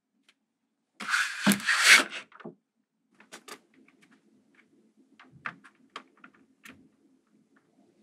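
A loud sliding, scraping rustle as a cone built from small magnetic balls is lifted off its surface, followed by scattered light clicks of the magnet balls as it is set down on top of another magnetic-ball structure.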